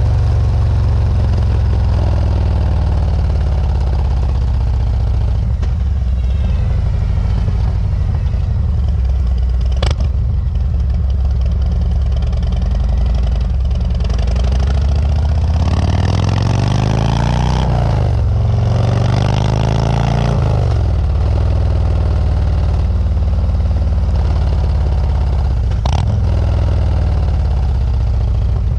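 Harley-Davidson Road Glide's Milwaukee-Eight 107 V-twin exhaust note through Rinehart DBX45 slip-on mufflers while riding. A steady, deep running note, with revs rising and falling twice past the middle and a couple of short sharp clicks.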